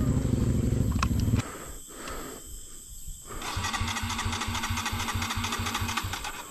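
Kawasaki KLX150 single-cylinder dirt bike being cranked on its electric starter for a few seconds, chugging evenly without catching: the rider suspects a flooded carburettor. Before that, a motorcycle engine runs loudly close to the microphone and cuts off abruptly.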